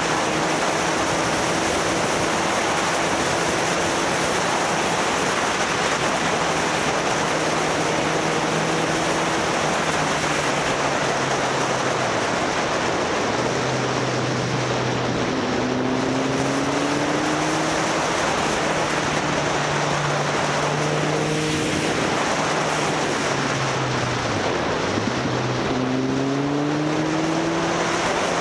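Motorcycle engine running while riding, under a heavy rush of wind on the microphone. The engine's pitch rises and falls with throttle and gear changes, dropping low about 25 seconds in and then climbing again.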